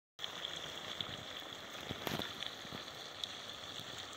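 Potato chips deep-frying in hot oil in a kadai: a steady sizzle with scattered crackles and pops, with a cluster of louder pops about two seconds in.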